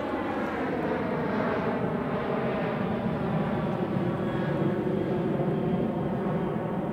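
Large jet airplane flying low overhead: a steady, loud engine drone whose tones slowly fall in pitch as it passes.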